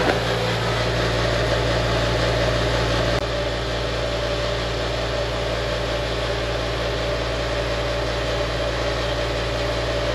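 Small electric vibrating motors shaking a steel washplant deck, a steady mechanical hum and rattle as the plate works a load of dirt down its slope. The level eases slightly about three seconds in.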